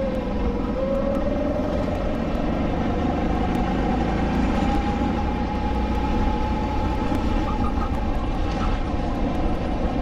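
SODI LR5 rental kart's 160cc four-stroke engine running hard, heard from on board. Its pitch dips briefly about half a second in, then climbs and holds steady at a higher pitch for the rest of the time.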